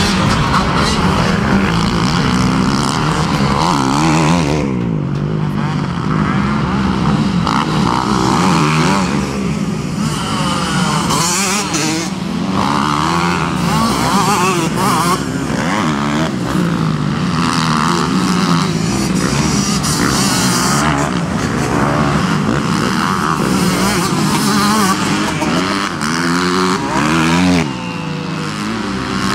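Several motocross motorcycles running on a dirt track. Their engines rev hard and ease off over and over, the overlapping pitches rising and falling as the riders accelerate, shift and pass.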